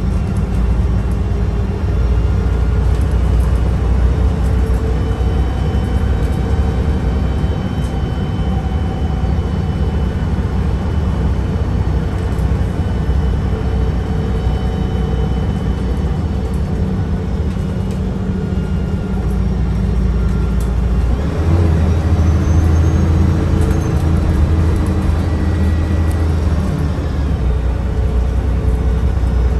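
Mercedes-Benz O405NH bus running, its engine drone loud and low under the whine of its Voith automatic transmission. About twenty-one seconds in, the drone steps up in pitch and a higher whine glides upward.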